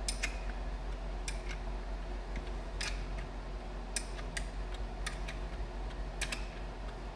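Scattered light metallic clicks and taps, about a dozen at uneven spacing, as the bolts of an A833 four-speed's front bearing retainer are threaded in and run up with a wrench, not yet tightened, over a steady low hum.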